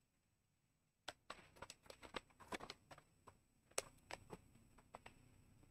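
Near silence for the first second, then faint, irregular soft clicks and rustles of handling at a desk, such as papers being moved, starting about a second in.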